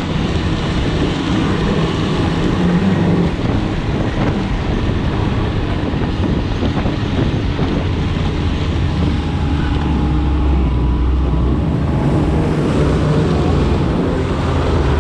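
Snowmobile engine running steadily under way, with a broad rushing noise over it; the engine note shifts somewhat lower and stronger about two-thirds of the way through.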